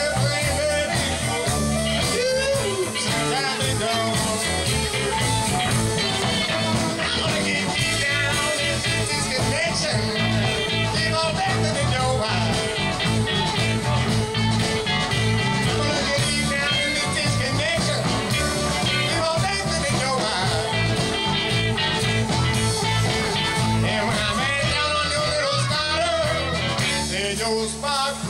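A live blues band playing, with electric guitars over a steady drum beat.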